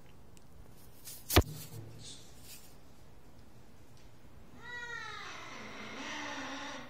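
A cat stuck in the gap of an elevator door gives one long, drawn-out meow, starting about two-thirds of the way through. Earlier, about a second and a half in, there is a single sharp knock, the loudest sound.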